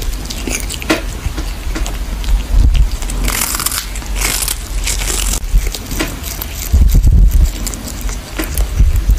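A cat chewing on a dried fish, with irregular crunching bites. A few low thumps come in between, the heaviest about seven seconds in.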